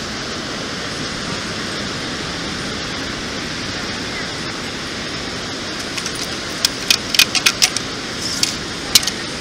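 Steady rushing background noise, then from about six seconds in a quick run of sharp metallic clinks: coins rattling against a perforated metal sand scoop as the sand is shaken out of it.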